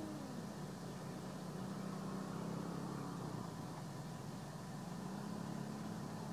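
Steady low hum of an engine running, its pitch drifting slightly and swelling a little about five seconds in.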